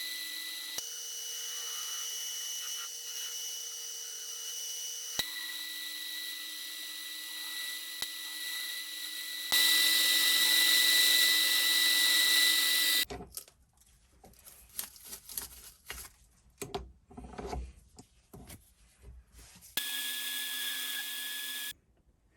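Mini lathe running with a steady motor whine, in short edited clips whose pitch changes at each cut; the loudest stretch is in the middle. Then several seconds of scattered clicks and scrapes of metal handling, and the lathe whine briefly again near the end.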